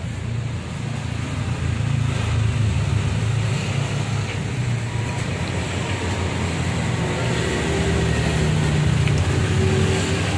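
Steady low rumble of motor traffic on a road, growing a little louder in the second half.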